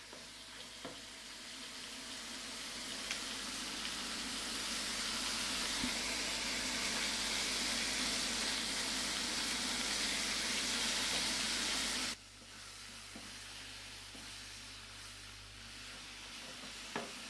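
Meat frying in a pan, a steady sizzle that builds and then drops suddenly to a quieter sizzle about twelve seconds in, with a few faint clicks.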